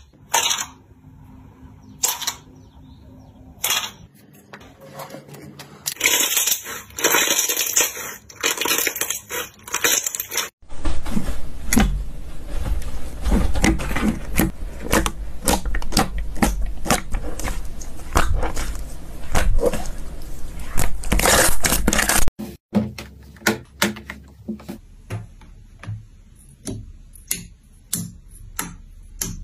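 Slime being squeezed and poked by hand: scattered sharp pops and clicks, then a long stretch of dense crackling in the middle, then separate pops again near the end.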